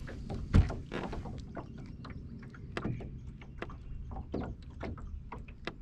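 Irregular knocks, taps and slaps on a bass boat's deck and hull, with one sharp thump about half a second in, over a steady low rumble.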